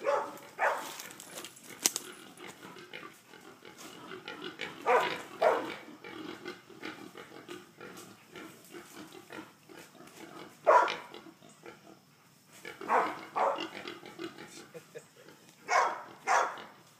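A hog dog baying at a group of hogs: loud barks come in pairs about half a second apart every few seconds. Between them the bayed hogs keep up a constant grunting clamour.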